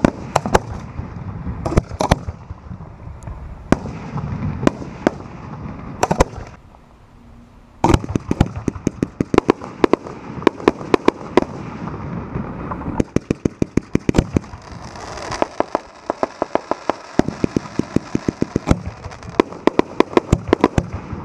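Display fireworks launching at close range from the firing line, sharp shots of tubes firing with shells bursting overhead. Scattered shots at first, a short lull about six seconds in, then rapid strings of shots, several a second, for the rest.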